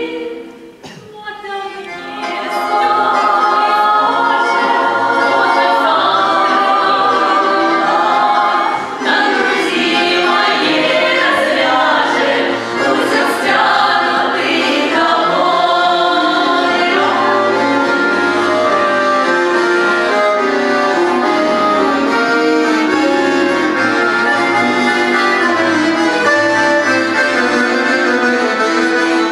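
Women's vocal ensemble singing a Russian song with accordion accompaniment. The music drops away briefly just after the start, then the accordion comes back in and the voices join.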